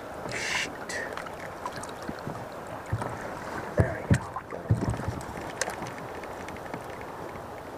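Water lapping against a kayak hull, with a few knocks between about three and five seconds in.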